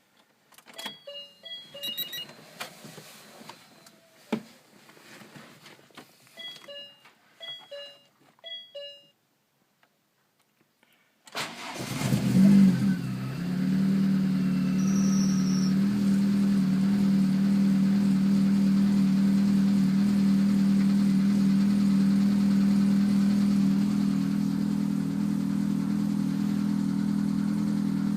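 Car engine started from cold: a few clicks and short beeps, a pause, then the engine catches about eleven seconds in, flares briefly and settles into a steady idle. The idle carries the cold-engine knock that the owner is showing.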